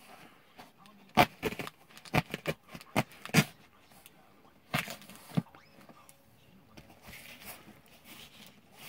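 Serrated knife sawing through a cardboard shipping box: a quick run of sharp scraping clicks starting about a second in, two more a couple of seconds later, and soft rustling of cardboard between.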